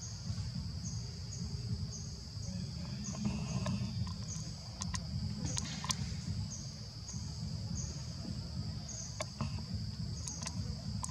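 Outdoor insect chorus: a steady high-pitched buzz with a short chirp repeating about three times every two seconds, over a low rumble of ambient noise. A few sharp clicks sound near the middle and end.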